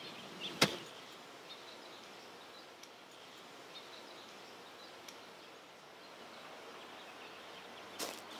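A single sharp click less than a second in, then faint, steady outdoor ambience with soft scattered chirps; footsteps start again near the end.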